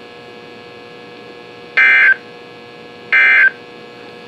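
NOAA Weather Radio SAME digital data bursts, the end-of-message code that closes an EAS alert: two short buzzy bursts of data tones, each about a third of a second long and a little over a second apart. A faint steady hum runs underneath.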